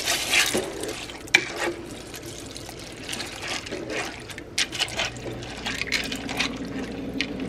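Wooden spoon stirring dry pasta shells through a thin liquid sauce in a pot: irregular wet sloshing and squelching, with scrapes and knocks of the spoon against the pot, one sharper knock about a second in.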